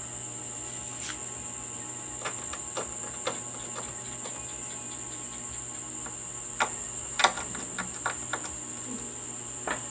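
Scattered light clicks and taps from handling the TV's backlight strip and test wires, over a steady high-pitched whine and a low hum.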